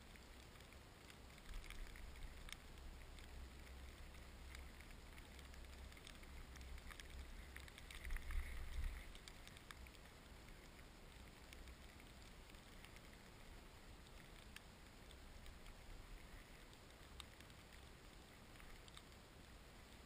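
Falling snow ticking faintly against a GoPro's housing, scattered light taps throughout, over a faint low rumble that swells briefly about eight seconds in.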